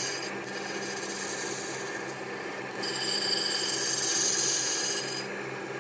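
Surface grinder's wheel grinding the edge bevel of a Felco No. 8 pruner blade held in a pivoting jig, over a steady motor hum. The hiss of the steel on the wheel fades just after the start, then comes back louder from about three seconds in for about two seconds, a second grinding pass.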